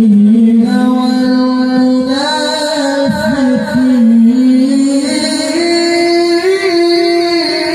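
A male qari's melodic Quran recitation (tilawah), sung into a microphone: one voice holding long notes with wavering ornaments, then stepping up to a higher held note about two-thirds of the way through.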